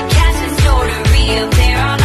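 Pop song playing: a sung vocal over a heavy bass beat, about two beats a second.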